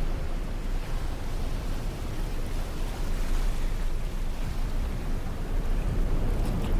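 Waves breaking on a sandy beach: a steady, deep rush of surf noise, heaviest in the low end, with no distinct individual breakers.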